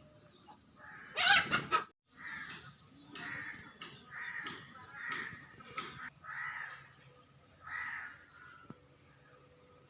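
A crow cawing over and over, harsh calls roughly once a second, after a short loud burst of sound about a second in.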